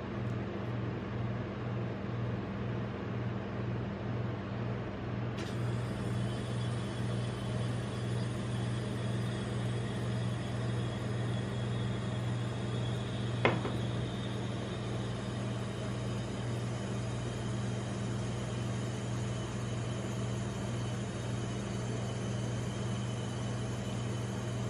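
Steady low hum of a rolled-ice-cream cold-plate machine's refrigeration unit, with a single sharp click about halfway through.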